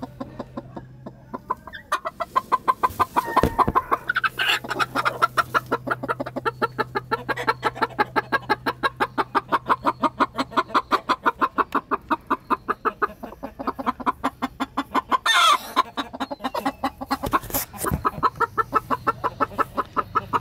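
Broody hens clucking on the nest in a fast, steady rhythm of several short clucks a second, starting about two seconds in, with a sharper, louder call about fifteen seconds in.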